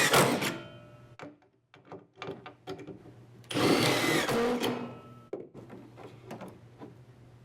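Power drill driving Camo hidden deck screws at an angle into a deck board through the Marksman Pro X1's screw guide, in two short runs: one ending about half a second in, the next starting about three and a half seconds in and lasting just over a second. A few light clicks and knocks fall between and after the runs.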